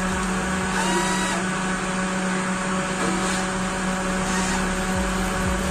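Bosch GO Gen 2 3.6 V cordless screwdriver running with no load, a steady motor hum, its bit pressed against a palm to trigger the push-to-start switch.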